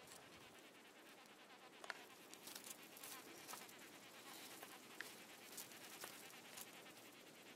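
Faint buzzing of a ground wasp near its nest in the ground, with a few light clicks about two and five seconds in.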